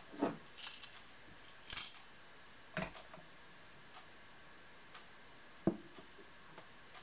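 Northern mockingbird pecking at a suet cake in a wire cage feeder: a few sharp, scattered clicks and taps.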